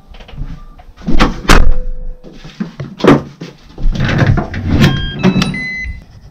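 Front door with a digital door lock being opened and pulled shut: a string of sharp handle and latch clunks and knocks, the loudest about a second and a half in. Near the end the lock plays a short run of electronic beeps at different pitches as it locks.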